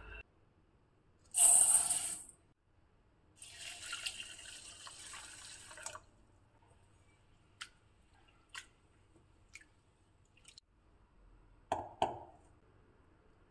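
Batter ingredients poured into a mixing bowl: a short loud pour, then a longer, softer pour. Light clicks follow, then two knocks about twelve seconds in.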